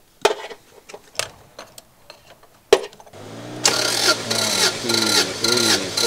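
Clicks and knocks as a compression gauge is fitted into a spark plug hole. About three seconds in, the starter motor begins cranking the Subaru GC8 STI's flat-four engine, which has its plugs out and fuel disabled, with a steady, even pulse a little over twice a second as the cylinders come up on compression. This is a throttle-closed compression test building pressure on the gauge.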